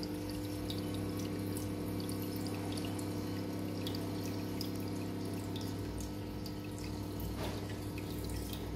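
Water trickling and dripping over a steady low hum.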